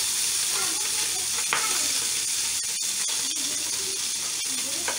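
Pabda fish shallow-frying in hot oil in a pan, a steady sizzle, with a few light clicks and scrapes of a metal spatula turning the fish.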